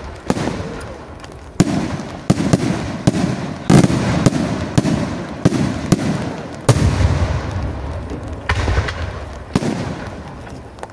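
Aerial firework shells bursting in quick succession, a series of sharp bangs roughly one or two a second, each trailing off in a low rolling echo.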